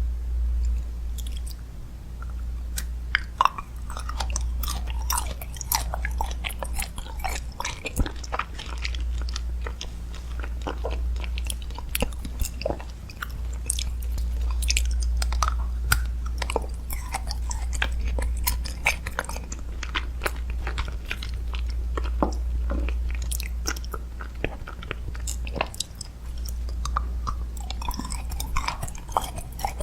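Close-miked chewing and biting into crunchy food, a dense run of sharp crunches and crackles, over a steady low hum.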